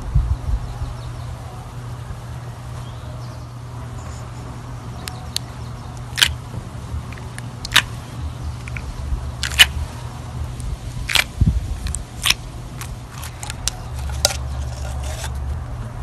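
Clear glitter slime being squished and pressed by hand, making irregular sharp pops and clicks that begin about five seconds in and come more often toward the end, over a steady low hum.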